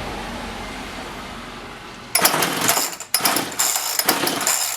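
A Homelite 3514C chainsaw being pull-started: from about two seconds in, several quick rough pulls of the recoil starter rattle the engine over without it catching.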